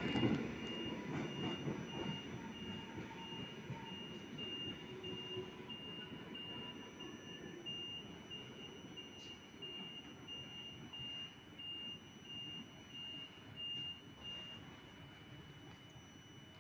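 Door-closing warning beeper on a Polregio EN57AL electric multiple unit: a long run of short, evenly spaced high beeps that stops about 14 seconds in, signalling the doors are about to shut before departure. Under it runs a low rumble from the standing train that slowly fades.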